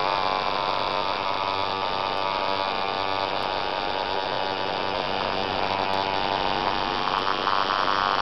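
Tattoo machine buzzing steadily while its needle works ink into the skin of a forearm.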